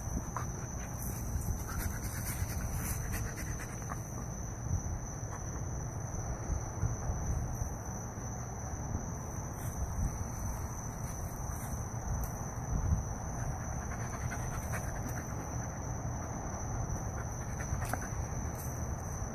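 A wolfdog and a pitbull puppy play-wrestling on sandy ground: dog panting with scuffling and small knocks, steady throughout.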